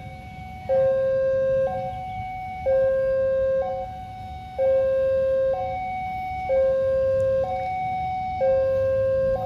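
Two-tone electronic warning signal, alternating a lower and a higher tone, each held about a second, with the lower tone louder, over a low background rumble.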